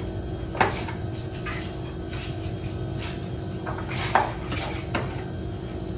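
A serving utensil clinking and scraping against a frying pan and a plastic food container as pancit noodles are spooned into a lunchbox: several short clatters spread irregularly over a steady low hum.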